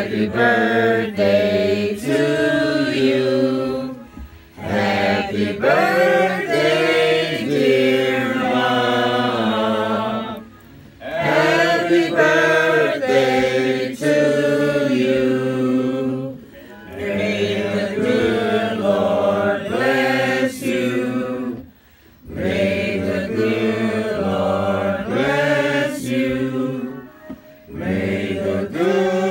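A group of people singing a slow song together, phrase by phrase with short breaks between lines.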